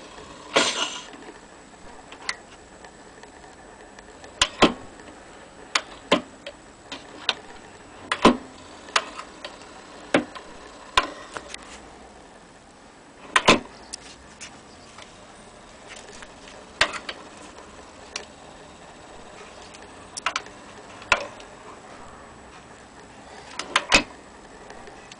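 Irregular clicks and knocks from the metal tonearm and soundbox of an HMV Model 102 portable gramophone being handled and moved, with a brief rubbing sound about half a second in.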